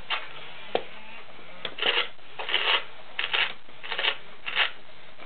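Playskool KOTA the Triceratops animatronic toy playing its chewing sound: a run of crunchy munching chomps, about one every two-thirds of a second, with a couple of sharp clicks from the moving jaw, while a hand is held in its mouth.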